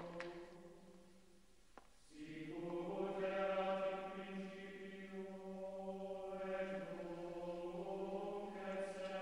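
Male choir chanting Latin plainsong. Low voices hold one steady note while other voices move above it. The chant drops away about a second in and swells back up about two seconds in.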